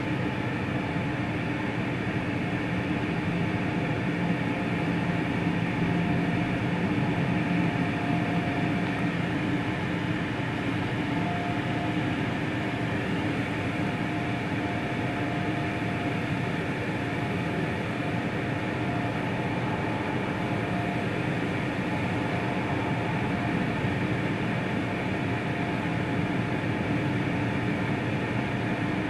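PDQ ProTouch tandem touchless car wash running through its cycle: a steady hiss of water spray from the overhead bridge, with a constant machine hum underneath.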